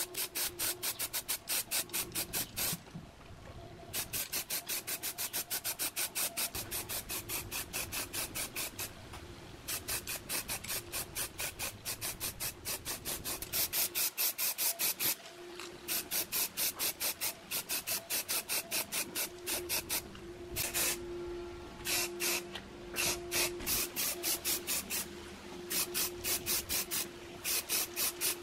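Aerosol spray-paint can spraying in quick short bursts, about five a second, in runs of a few seconds with brief pauses between.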